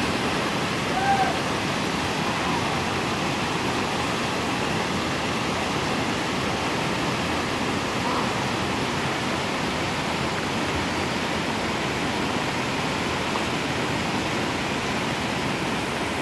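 Steady rushing of floodwater: a swollen creek in spate and muddy storm runoff pouring across the road during heavy tropical rain.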